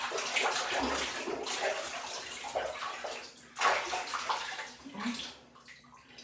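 Bathwater splashing and sloshing in a plastic tub as a hand scoops it over a cat's back, with one louder splash about three and a half seconds in; the splashing dies away near the end.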